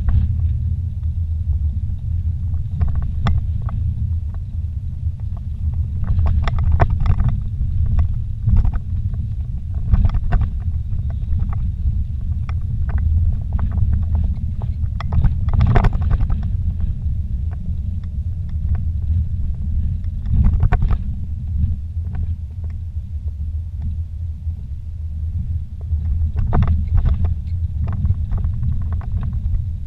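Vehicle cabin noise while driving a rough dirt trail: a steady low engine and tyre drone, with scattered knocks and rattles as the vehicle jolts over bumps, the loudest about halfway through.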